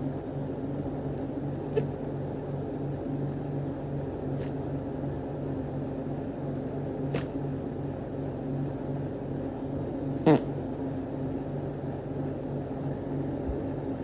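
Steady low hum with two held tones, like a fan or appliance running, with a few faint clicks and one brief louder sound dropping in pitch about ten seconds in.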